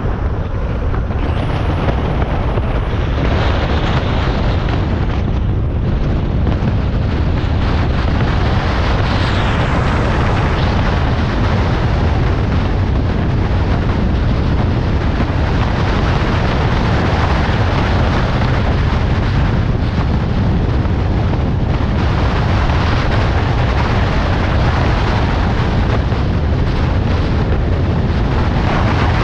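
Car driving at a steady speed: a loud, constant low rumble of wind on the microphone mixed with tyre and road noise.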